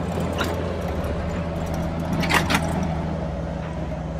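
Steady low drone of a vehicle driving on a gravel road, heard from inside the cabin: engine and tyre noise. A few sharp clicks or rattles cut through it, a light one near the start and two louder ones close together about two and a half seconds in.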